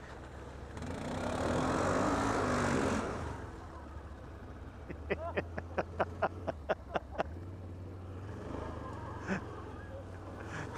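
ATV engine running steadily at low speed on a muddy trail. It swells louder for a couple of seconds near the start, and a quick run of about ten sharp clacks comes midway.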